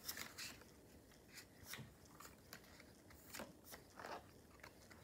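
Faint, scattered rustles and light clicks of Pokémon trading cards being handled and flipped through by hand.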